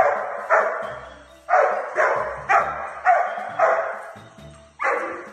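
A dog barking repeatedly: about eight short barks, roughly two a second, with a pause before the last one.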